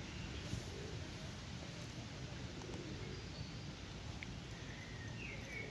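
Outdoor park ambience: a steady low rumble with a few faint, short bird chirps, the clearest near the end.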